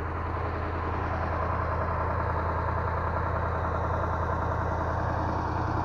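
Engine of a crane-equipped log-handling machine running steadily at idle, a low even hum that swells slightly about a second in.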